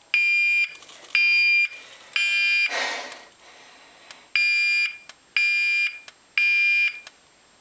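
Genesis fire alarm speaker strobe sounding the temporal-3 (code 3) evacuation tone: three half-second beeps, a pause, then three more. A short burst of noise follows the third beep.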